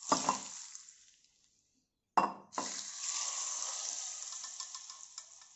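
Mustard-seed and asafoetida tempering oil poured from a small steel pan onto chopped raw mango, hissing and crackling as it lands. About two seconds in there is a sharp knock, then a longer crackling hiss that slowly fades.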